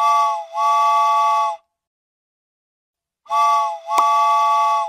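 Steam locomotive whistle: a chord of several steady notes, blown as a short toot then a longer one, twice over, with a pause of about a second and a half between the two pairs.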